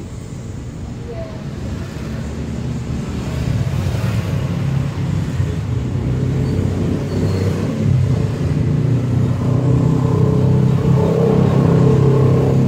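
A motor vehicle's engine running close by, a steady low hum that grows steadily louder.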